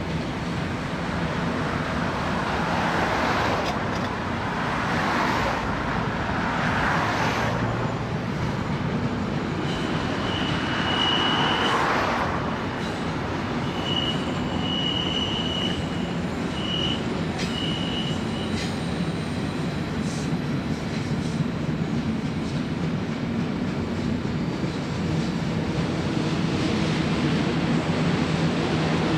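Empty double-stack well cars of a passing freight train rolling by, wheels and car bodies rattling on the rails. A high wheel squeal comes and goes in four short spells in the middle. The steady hum of the held train's idling diesel locomotives runs underneath.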